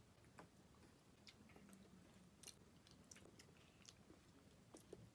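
Near silence with faint, scattered small clicks: mouth and spoon sounds of people tasting a sauce off spoons.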